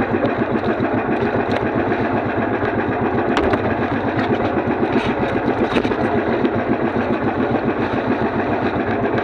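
A small engine running steadily at an even speed, with a rapid even pulsing.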